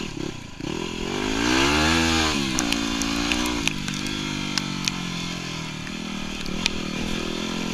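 Yamaha WR250R's single-cylinder four-stroke engine revs up about a second in and drops back, then runs at a fairly steady throttle as the bike rides along. A few sharp ticks are heard during the ride.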